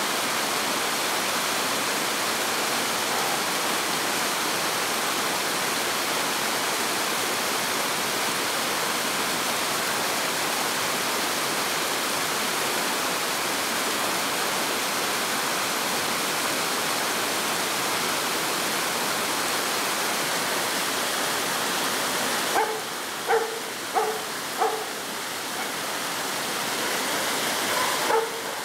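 Water rushing over rocks in a mountain stream, a steady rush. About three-quarters of the way through the rush drops lower and a dog barks four times in quick succession, then once more near the end.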